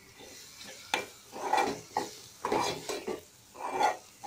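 A spatula stirring thick onion-tomato masala in an aluminium pot, mixing in spice powders. There are three rasping scrapes against the pot about a second apart, with a few light knocks of the spatula on the metal.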